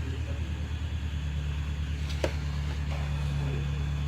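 Hot-air heat tool running with a steady low hum while heating a laptop's graphics chip to reflow it, the hum getting stronger about a second in. A single sharp click a little after two seconds.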